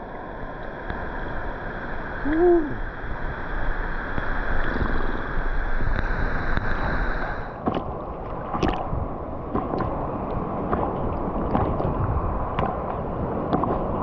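Waterfall water rushing and sloshing close to the microphone. About halfway through the steady hiss thins and a run of irregular small splashes and knocks follows; a brief hooting tone sounds about two and a half seconds in.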